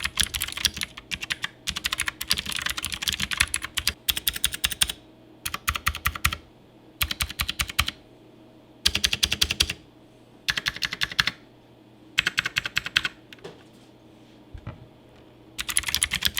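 Typing on a Gamdias Hermes M5 mechanical keyboard with clicky blue switches: fast bursts of sharp clicks, broken by short pauses of a second or so.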